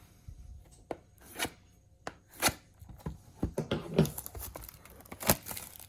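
A cardboard trading-card box being opened by hand: irregular scrapes, taps and tearing at the packaging, about half a dozen sharp ones over a light rustle.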